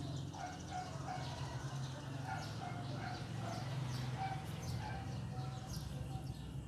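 Many small birds chirping and calling in quick, short notes, over a steady low hum.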